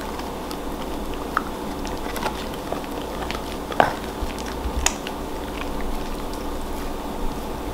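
A puppy gnawing on a chew, with irregular wet crunching and clicking of its teeth, two sharper crunches about four and five seconds in. A steady background hum runs underneath.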